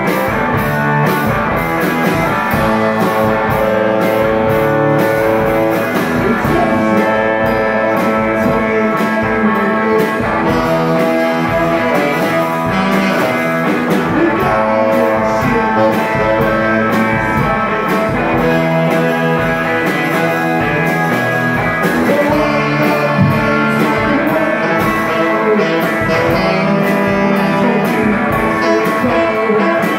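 A live band of electric guitar, saxophone and drum kit playing, with the saxophone holding long notes over the guitar and steady drum hits.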